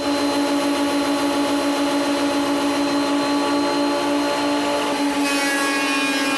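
Electric power tool running at a steady speed, a strong even hum with overtones. Near the end the sound thickens with added hiss, as the tool begins working the wood.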